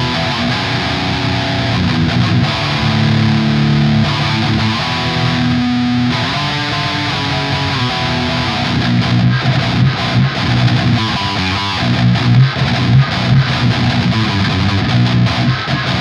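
Eight-string electric guitar with Chinese-made Invander humbucker pickups, played through heavy distortion. It starts with long held notes and chords, then about halfway in turns to fast, choppy low riffing.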